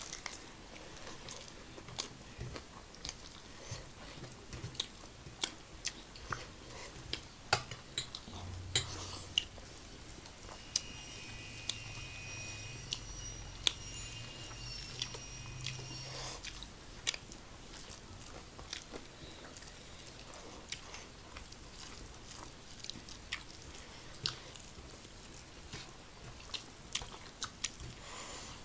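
Close-up chewing and biting of crispy fried chicken, with many sharp crunching clicks. A faint high whistling tone comes in about eleven seconds in and stops about five seconds later.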